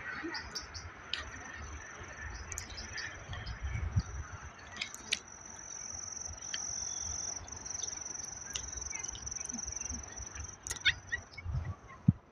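Outdoor ambience: a steady high-pitched chirring that is loudest in the middle, over low rumble and scattered clicks.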